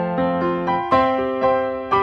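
Background music: a piano playing a slow, gentle melody. Notes and chords are struck about every half second, each one dying away.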